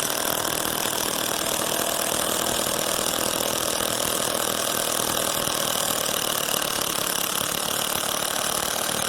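Metabo 36V brushless cordless impact driver hammering steadily on its low power setting, slowly backing out a rusted half-inch-head bolt.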